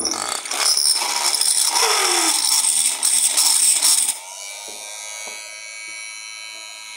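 Homemade drill built on a 775 high-torque DC motor boring into wood, with a rough grinding noise from the bit as the motor works under load. About four seconds in the load comes off: the motor whine rises a little and settles into a steady free-running hum.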